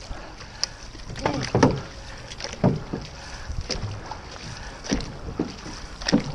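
Outrigger canoe (OC6) being paddled: paddle blades catching and pulling through the water in a steady stroke rhythm, about one splash a second, six strokes in all.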